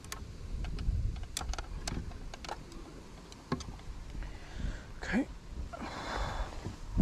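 Handling noise from weighing a carp: scattered light clicks and knocks from the landing net and a dial spring scale being handled, over a low rumble. A brief rising squeak about five seconds in.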